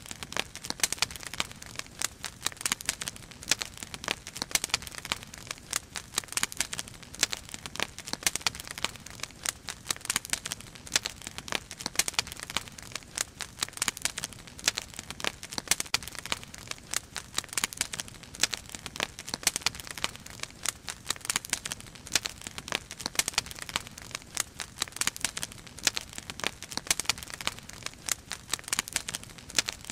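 Firewood burning in a fire basket, crackling with a dense, irregular run of sharp pops and snaps.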